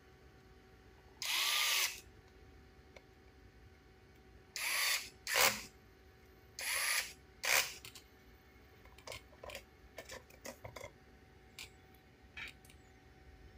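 Small electric screwdriver whirring in five short bursts, its pitch swelling and dropping, as it backs out the small screws on an RC car's plastic gearbox housing. Light plastic clicks follow as the loosened parts are handled.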